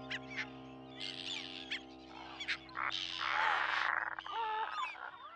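Seabirds calling at a breeding colony, short sharp calls and a harsh rasping call a few seconds in, over a held chord of background music that slowly fades.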